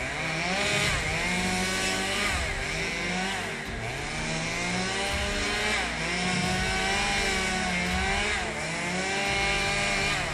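Chainsaw engine running hard, its pitch dipping and climbing back again every couple of seconds as the revs change.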